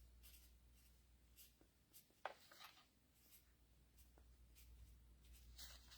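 Faint short scratching strokes of a marker pen writing on a hydraulic pump part, with a small click about two seconds in.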